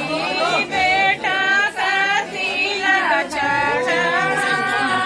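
Women singing a traditional folk song sung while the tilak is applied, in long held notes that bend in pitch.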